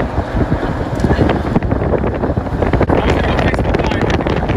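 Strong, gusty wind from a tornado at close range, buffeting the microphone with loud, rumbling noise.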